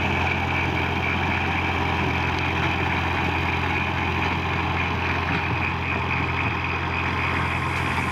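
Fiat 480 tractor's three-cylinder diesel engine running steadily under load while driving a rear-mounted rotavator through dry soil.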